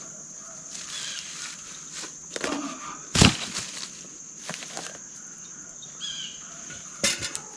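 Wood knocking and rustling as logs and sticks are handled, with one loud thump about three seconds in and a quick run of clicks near the end, over a steady high insect chorus.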